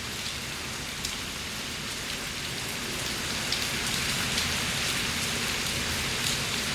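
Heavy rain pouring steadily in a thunderstorm, a dense even hiss with scattered drop ticks, growing slightly heavier about halfway through.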